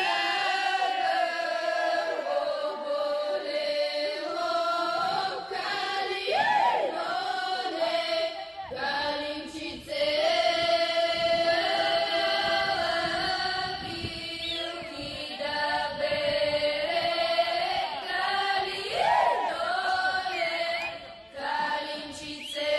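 Bulgarian women's group singing a traditional ritual folk song in unison: long held notes in phrases, with sharp upward vocal swoops as ornaments, breaking off twice for breath.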